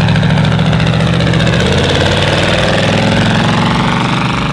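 Vehicle engine running loud and close, its pitch climbing through the middle as it picks up revs.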